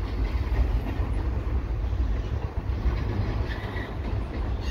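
Double-stack intermodal freight cars rolling past on the rails, a steady rolling noise with no distinct wheel clicks, with wind buffeting the microphone.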